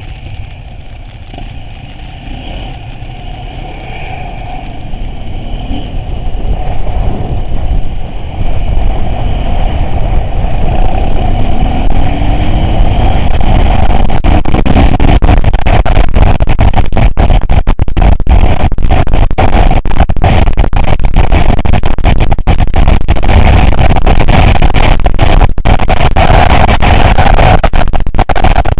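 Off-road vehicle engine running under way, growing steadily louder over the first half. After that, heavy wind buffeting on the microphone overloads it and swamps the engine.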